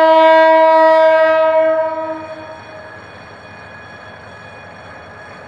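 GM GT-22 diesel locomotive's horn sounding one long, steady, loud note as the crew's greeting, fading away a little after two seconds in. The train runs on more quietly after that.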